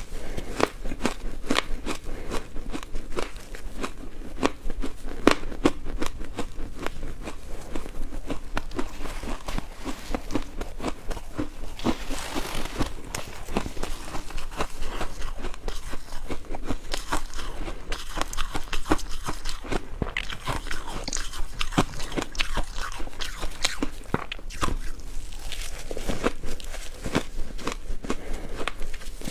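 Ice being bitten and chewed close to the microphone: a continuous run of sharp, irregular crunches and cracks as the cubes break between the teeth.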